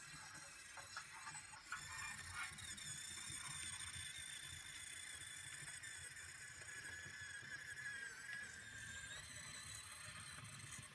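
Small electric drive motor and gears of a radio-controlled 7mm-scale model lorry whining as it drives, a thin high whine that starts about two seconds in, dips slightly in pitch and fades out near the end.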